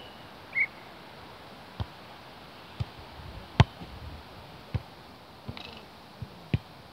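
Beach volleyball rally: a volleyball is struck again and again by players' hands and forearms, about seven sharp slaps a second or so apart, the loudest about halfway through. Two short high chirps sound at the very start.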